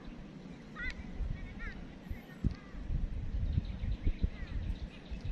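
Wind buffeting the microphone in uneven low rumbles and thumps, with a few short bird chirps in the first two seconds.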